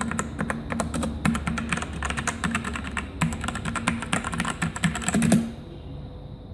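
Typing on a Digital Alliance K1 mechanical keyboard with Outemu Red linear switches: a rapid run of keystroke clacks that stops about five and a half seconds in, leaving only a faint steady background hum.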